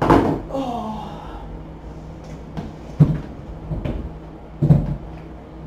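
Items being rummaged and shifted on a wooden table, with three sharp knocks: one at the start, one about three seconds in and one near the end. A short spoken 'oh' comes just after the first knock.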